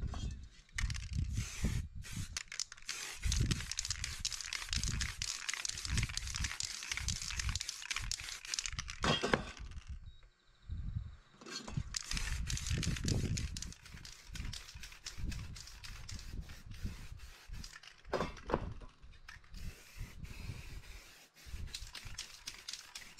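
Aerosol spray paint cans spraying in long hissing passes, with a break about ten seconds in before the spraying resumes. Low thuds and rumbles run underneath.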